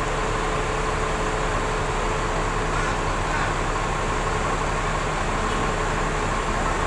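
Intercity coach's diesel engine idling with a steady hum.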